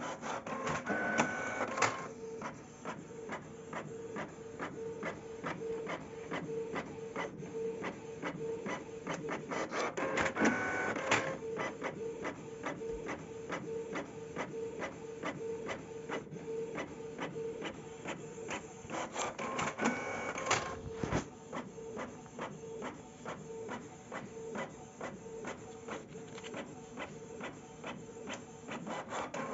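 A home all-in-one printer printing: a rapid, even train of mechanical clicks over a pulsing steady hum. About every nine seconds comes a louder stretch of whirring.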